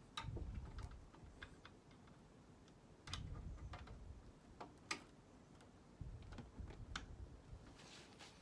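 Faint, irregular light plastic clicks and taps from computer cables and connectors being handled and plugged in inside a PC case, with a few short low rumbles of handling.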